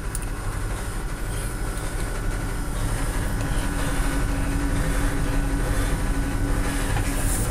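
Steady low rumbling noise, with a faint hum coming in about three seconds in and stopping near the end.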